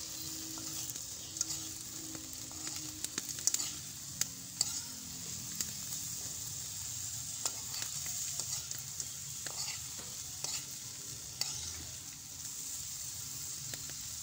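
Sago palm weevil grubs sizzling in a hot wok, with a metal spoon scraping and clicking against the pan as they are stirred.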